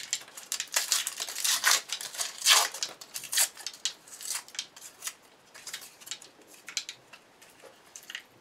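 Paper wrapping being sliced, scraped and torn off a firework ball shell with a razor blade: a run of irregular scraping and crinkling strokes, louder in the first half and fainter later.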